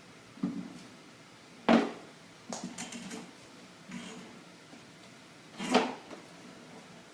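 A handful of short knocks and clatters, a few seconds apart, the loudest about two seconds in and again near the end.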